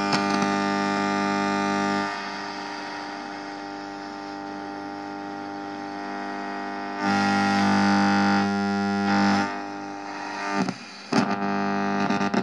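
Buzzing interference from a Maxitronics shortwave regenerative radio kit played through a mains-powered loudspeaker as it is tuned: a steady buzz over hiss. It drops after about two seconds and swells again around seven seconds. The buzz comes from the mains-connected speaker and the antenna, which make the set more sensitive but less selective.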